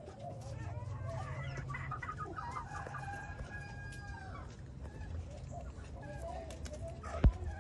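A flock of chickens clucking and calling, several birds at once, with a longer drawn-out call about three seconds in. A single sharp knock near the end.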